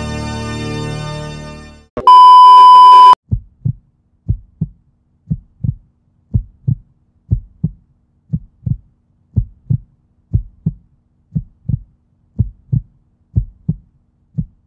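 Soft background music fades out, then a loud, steady high beep sounds for about a second. A heartbeat sound effect follows, a double thump about once a second.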